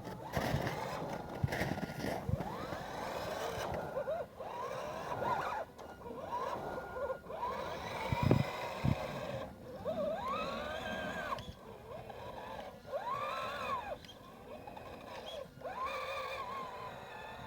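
Electric motor and geared drivetrain of an RC scale 6x6 truck whining in repeated throttle bursts, the pitch rising and falling with each burst as it crawls over rough ground. A few sharp knocks come in between, the loudest about eight seconds in.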